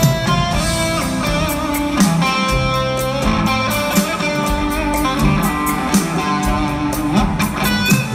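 Rock band playing live over an arena PA: electric guitars over bass and drums, with regular drum hits.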